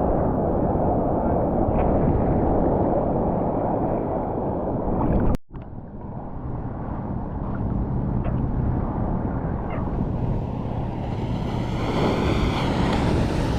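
Surf and churning water with wind buffeting a GoPro's microphone while bodyboarding. About five seconds in the sound cuts out abruptly and comes back muffled, as when the camera goes under the water. It turns brighter and hissier with splashing near the end.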